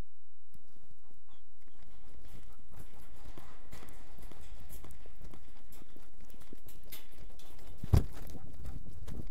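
Search-and-rescue dog's wearable microphone picking up the dog on the move: a patter of paw steps with rubbing and knocking against the wearable, starting about half a second in, and one sharp knock near the end.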